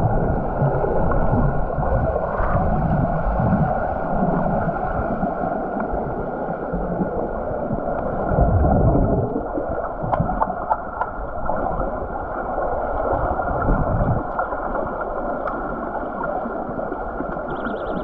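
Muffled underwater noise in a swimming pool, picked up by a submerged camera: a dull rushing and gurgling of water stirred by swimmers, with a few sharp clicks a little past the middle. Near the end a faint high pulsing tone starts.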